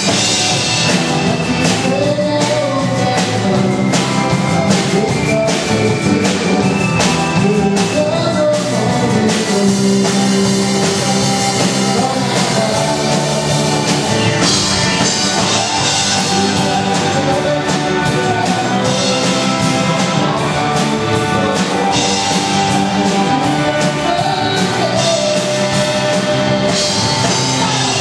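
Rock song with drums, guitar and a singing voice, steady throughout.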